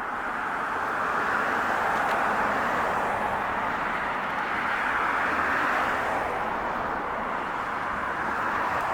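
Steady rushing noise of a passing vehicle that slowly swells and then eases off.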